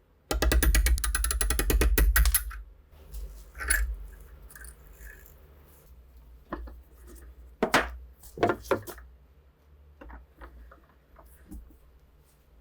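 Workshop handling of metal rifle parts: a loud, rapid buzzing rattle for about two seconds near the start, then scattered clicks and knocks.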